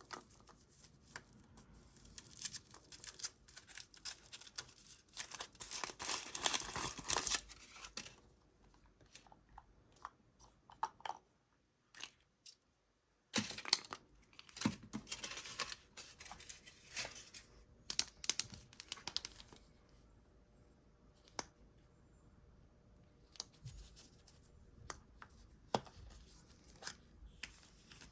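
A surprise-egg wrapper being torn open and crinkled by hand: a long stretch of tearing over the first several seconds, then more tearing and crinkling with sharp clicks after a brief pause.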